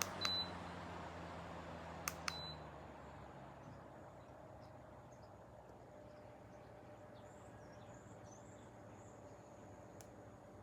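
Pelonis 16-inch pedestal fan: two short beeps, each with a click, about two seconds apart, then the fan's steady whir and hum die away over a few seconds as it winds down.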